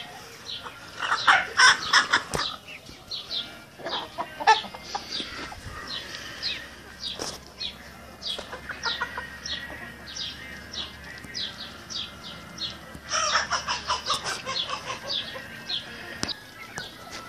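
A flock of Brahma and Cochin chickens clucking and calling, with a steady run of short high chirps about twice a second. A loud burst of rapid cackling comes about a second in and again near the end.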